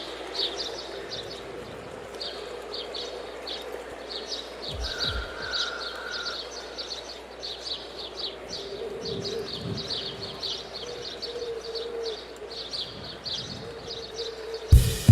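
Birds chirping: rapid, high-pitched chirps repeated steadily. A drum beat cuts in loudly just before the end.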